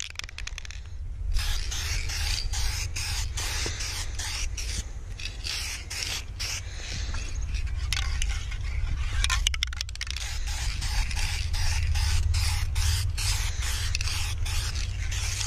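Aerosol spray can of Dupli-Color adhesion promoter hissing as a light coat is sprayed onto a plastic windshield, in repeated passes with brief breaks and a longer pause about nine and a half seconds in. A steady low rumble runs underneath.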